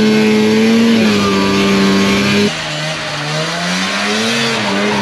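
Snowmobile engine running under throttle, its note holding fairly steady with small rises and dips. About halfway through, the sound changes abruptly and gets a little quieter. The engine note then rises and falls.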